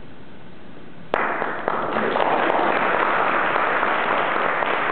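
Audience applauding, starting about a second in with a sharp first clap and swelling into steady clapping that fills the hall.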